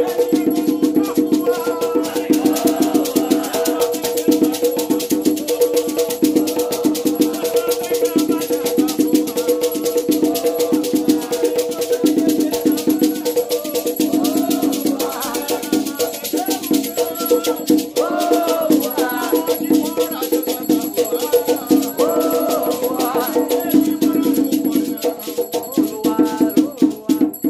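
Ritual chant for the Exu spirits: a rattle shaken fast and evenly, with voices singing over it.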